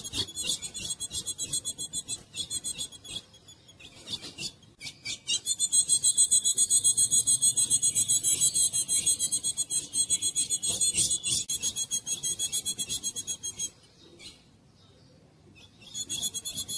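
Female ultramarine grosbeak (azulão) calling: a fast, rasping chatter of high notes repeated several times a second, in long runs that break off briefly about 3 seconds in and again near the end before starting up once more.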